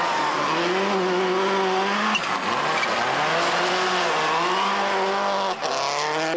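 Subaru Impreza rally car's turbocharged flat-four engine revving hard on a gravel stage. The revs climb and drop several times, with a sudden break about two seconds in and again near the end, over the hiss of gravel thrown up by the tyres.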